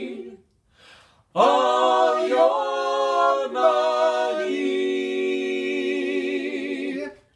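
A cappella vocal trio, a woman and two men, singing in harmony. A phrase dies away, and after a short pause they come back in, move through a few notes and hold a final chord for several seconds, cutting off just before the end.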